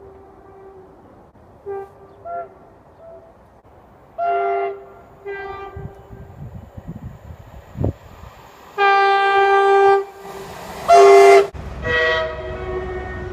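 Train horns sounding: a few short, faint toots, then louder two-tone notes, a long blast about nine seconds in, and a loud pair of notes of different pitch near the end. A train's low rumble comes in under the last notes.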